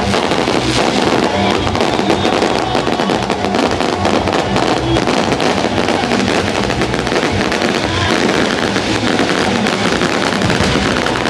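A dense, continuous barrage of fireworks crackling and popping, with music playing along with it.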